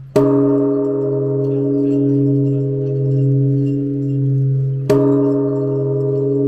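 Large Japanese temple bell (bonshō) struck twice with a wooden beam, about five seconds apart. Each strike rings on in long tones over a steady deep hum.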